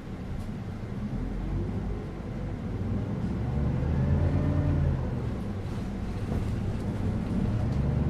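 City bus engine and drivetrain pulling away and accelerating: a low rumble grows louder, with a whine that rises in pitch and then falls away, and the engine picks up again near the end.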